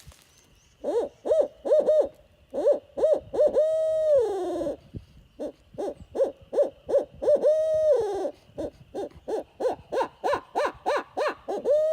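American Hooter hand-held owl call blown in cupped hands, imitating a barred owl's eight-note hoot: short rising-and-falling hoots, each phrase ending in a long held note that slides down. Near the end comes a fast run of short hoots, then another long drawn-out note.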